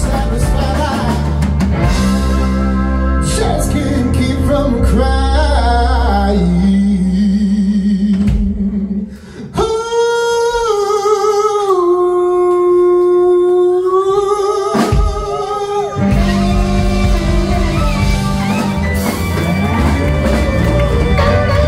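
Live blues band playing: electric guitars, bass, drums and saxophone under a male lead vocal. About nine seconds in the band drops out and one long note is held alone for around six seconds, then the full band comes back in.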